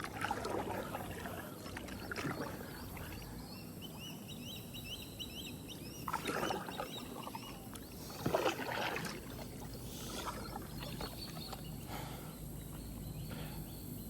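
Kayak paddle strokes swishing and dripping in the water, about four separate strokes. A bird sings a quick run of high chirps between the second and third strokes.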